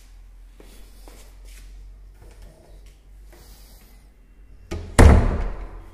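A door banging shut about five seconds in, one loud bang that rings out over nearly a second, after faint clicks and handling noise.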